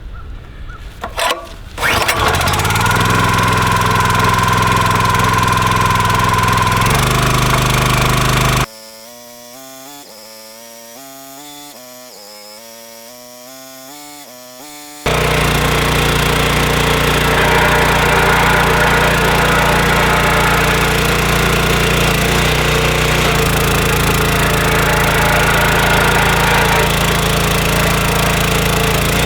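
Small gas engine of a new Dirty Hand Tools 25-ton log splitter starting up about two seconds in and then running steadily on its first run, held at low throttle to break it in. The running drops away abruptly to something much quieter for about six seconds in the middle, then comes back at full level.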